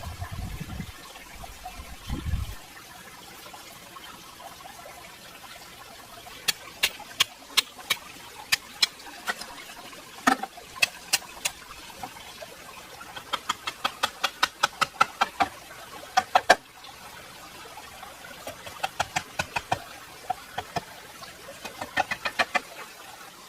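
A series of sharp knocks in uneven runs, a few single strikes at first, then a fast run of about four a second that ends with the loudest knock, and two shorter runs near the end. A couple of low thumps come in the first two seconds.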